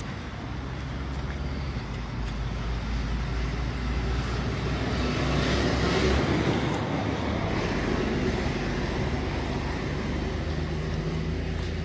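Street traffic: a motor vehicle's engine running steadily, growing louder to a peak about halfway through and then easing off as it passes close by.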